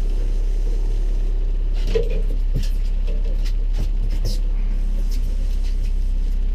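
Boat motor running steadily at trolling speed, a low even drone, with a few short knocks and clatters about two to four seconds in.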